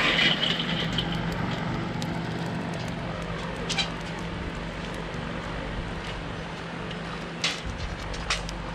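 Burning wood lump charcoal tipped out into a kettle grill, a clattering rush in the first second. Then a steady background noise with a low hum and a few sharp clicks, the last two near the end.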